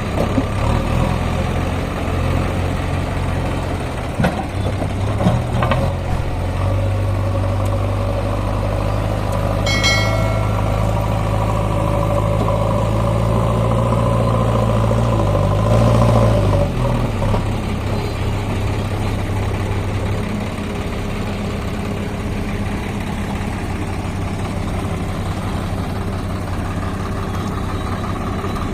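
Backhoe loader's diesel engine running steadily, working harder for several seconds past the middle and then easing back to a lower, idling level. A few sharp knocks come in the first six seconds, and a short high-pitched squeal comes about ten seconds in.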